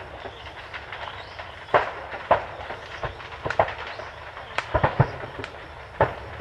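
Fireworks stock exploding in a burning fireworks building: irregular sharp bangs and pops, several in quick succession toward the middle, over a steady rumble.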